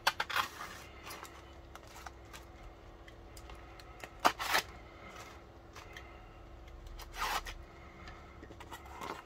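Snap-off utility knife cutting through the packing tape of a small cardboard parcel: short scraping slices and handling of the cardboard, with a few sharper scrapes, the loudest about four seconds in and about seven seconds in.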